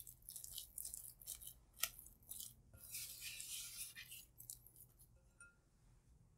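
Spatula scraping around a glass mixing bowl and folding sticky naan dough: faint scrapes and soft clicks, with one sharper click nearly two seconds in. It dies away about five seconds in.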